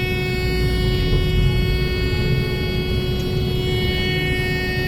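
Heavy farm machinery running steadily: a low engine rumble with a steady high whine laid over it.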